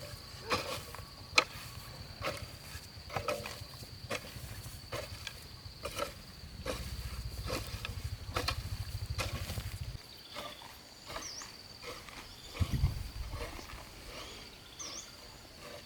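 A steady, high, thin insect drone, with scattered sharp clicks and knocks over it, a low rumble that stops about ten seconds in, and a few short bird chirps near the end.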